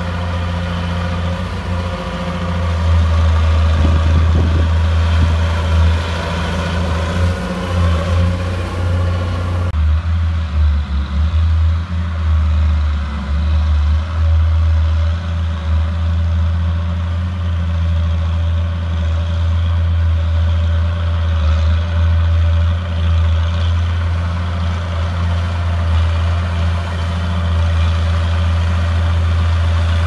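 Komatsu D31 crawler bulldozer's diesel engine running steadily with a low hum as it pushes dirt. About ten seconds in, the sound changes abruptly as the higher sounds drop away.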